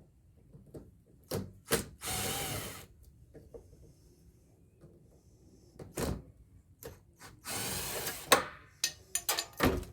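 Power drill running in two short spurts of just under a second each, backing out screws. Between the spurts come sharp clicks and knocks from parts being handled.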